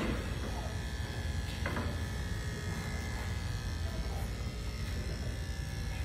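Electric dog-grooming clipper running with a steady buzz as it trims a long-haired chihuahua's coat. There are a couple of faint clicks, one at the start and one just under two seconds in.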